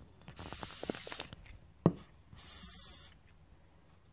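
Handling noise as two resin ball-jointed dolls on stands are picked up and turned round: two short bursts of hissy rubbing, and a single sharp click in between.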